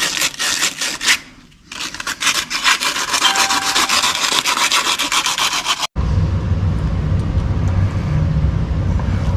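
Rapid back-and-forth rubbing strokes of hand-sanding a cut water pipe end to prepare it for a connector, with a brief pause about a second in. About six seconds in the sanding stops abruptly and a steady low rumble takes over.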